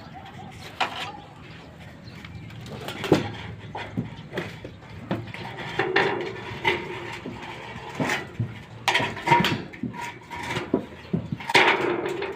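Irregular knocks and clatter, sharp strikes coming roughly once a second.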